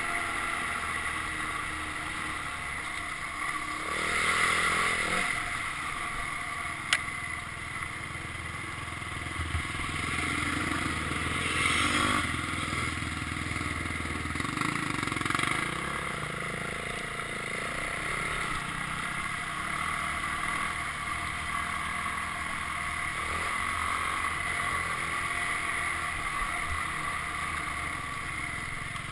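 Dirt bike engine running while the bike is ridden, with louder swells about 4, 12 and 15 seconds in and a sharp click about 7 seconds in.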